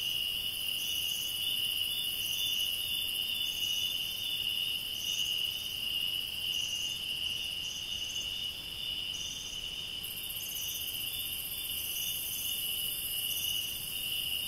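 Night chorus of insects, crickets among them: a steady high-pitched trill, with a shorter, higher chirp repeating roughly once a second.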